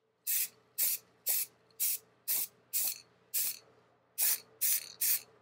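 Aerosol can of Rust-Oleum flat black spray paint hissing in short, quick blasts, about two a second, with a brief pause about three and a half seconds in.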